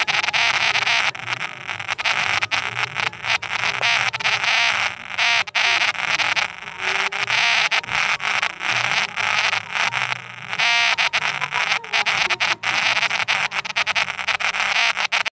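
Television commercial soundtrack re-recorded off a TV's speaker, harsh and choppy throughout, with voices in it.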